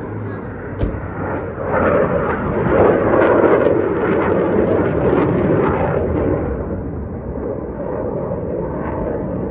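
Jet noise from a formation of military jets flying overhead: a loud, rushing roar that swells about two seconds in, stays loud, then eases a little toward the end.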